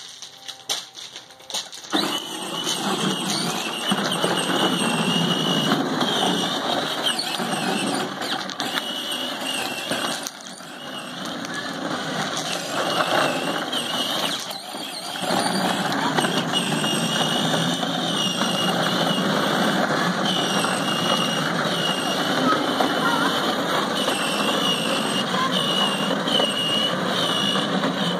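Battery-powered ride-on toy train driving along, its electric motor and plastic gearbox giving a steady whir with a wavering high whine as the plastic wheels roll over the ground. It starts about two seconds in and eases off briefly twice, around ten and fifteen seconds in.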